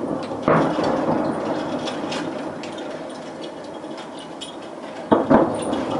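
Fireworks salute shells bursting: a boom about half a second in and two more in quick succession near the end, each trailing off in a long rumbling echo, with crackling sparks in between.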